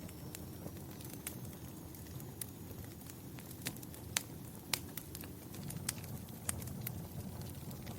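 Wood fire burning in a fireplace: a steady low rumble of flames with irregular sharp crackles and pops, the two loudest a little past the middle.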